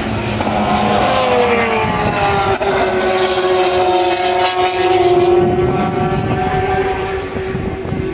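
Race car passing at speed on a circuit: its engine note falls in pitch as it goes by, about a second in, then holds a steady pitch as it carries on through the corner.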